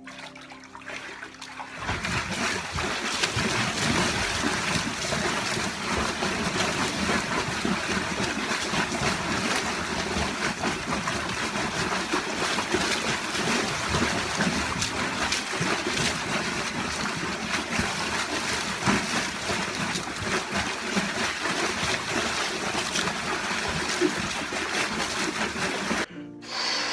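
Liquid splashing and trickling steadily, a wet sound performed as Foley for spewing. It starts about two seconds in and stops suddenly near the end.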